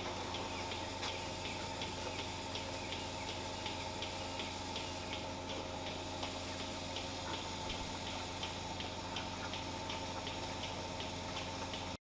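A steady machine hum with a light, regular ticking of about three ticks a second; it cuts off suddenly near the end.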